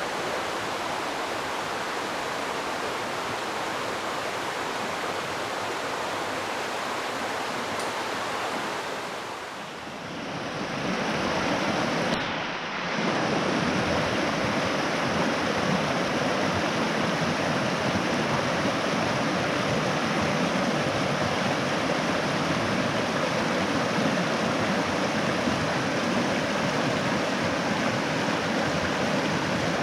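Steady rush of a mountain creek's flowing water, with no distinct events. It dips briefly near the middle and then comes back somewhat louder after a sudden break.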